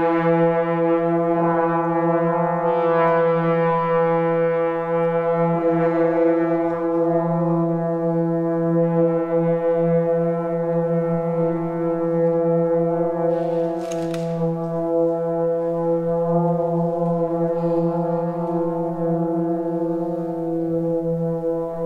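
Orchestra holding one long sustained chord, a steady drone that barely changes, with a short hiss rising and fading away about two-thirds of the way through.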